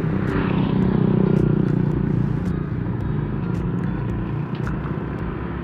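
Motorcycle engine running while riding, swelling a little about a second in and then easing back.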